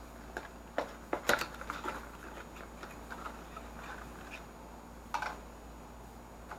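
Sunglasses and their packaging being handled and unpacked by hand: a few sharp clicks and knocks, the loudest about a second and a half in, then small ticks, and a brief scrape near the end.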